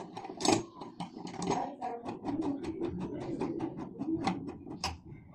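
Rapid, uneven run of small clicks and light knocks, several a second, from doorknob lockset hardware being handled and fitted.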